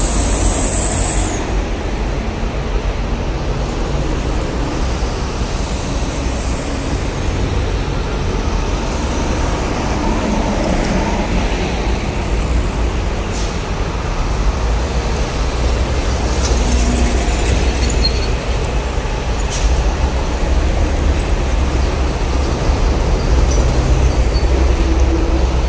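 Heavy traffic on a highway: trucks and buses passing in a steady roar of engine and tyre noise with a deep rumble, growing somewhat louder in the second half. A thin high whine fades out in the first second.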